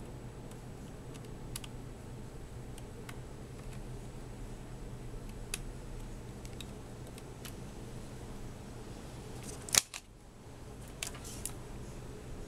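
Scattered small clicks and taps of screws and plastic laptop parts being handled during reassembly, over a steady low hum. One sharper, louder click comes near the end.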